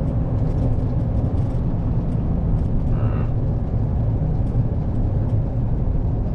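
HGV diesel engine running steadily, a continuous low drone heard from inside the truck's cab as it drives. A brief, short pitched sound occurs about three seconds in.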